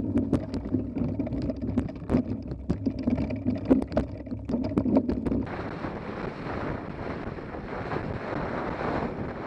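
Mountain bike rattling down a rough forest singletrack, with many sharp knocks as it jolts over the bumps. About five and a half seconds in the sound changes to an even rush of wind on the microphone, with tyres rolling fast on a gravel road.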